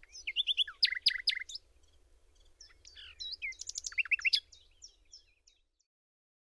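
Birdsong: quick, varied chirps and short whistled notes in two busy flurries, thinning out and fading away about five and a half seconds in.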